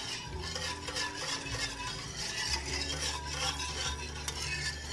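A wire whisk stirring a thin, milky soup base in an enamelled pot. Its wires swish through the liquid and scrape against the pot in a continuous run of quick, irregular strokes.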